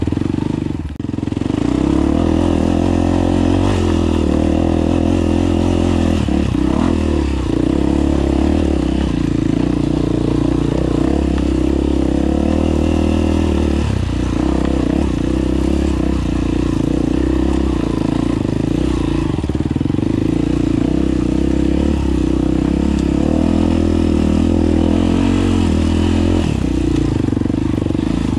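Dirt bike engine running steadily as the bike is ridden, with a brief drop in loudness about a second in.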